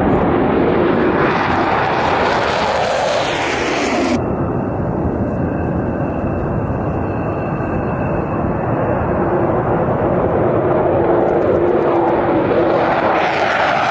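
Military jet engines at takeoff power as fighters roll down the runway, a loud, steady jet roar. About four seconds in the sound cuts abruptly to a duller roar, and it brightens again near the end.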